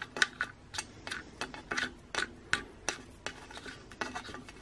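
Small plastic-and-metal clicks and rubbing as a propeller nut is screwed by hand onto the shaft of an electric trolling motor, turning the propeller with it, in a run of about three clicks a second.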